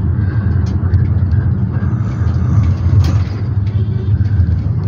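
Engine and road rumble inside a moving passenger minibus (dolmuş): a steady low drone with a few faint rattling clicks.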